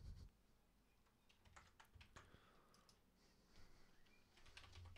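Faint computer keyboard keystrokes, a few scattered taps with a cluster about a second and a half in and more near the end, over near-silent room tone.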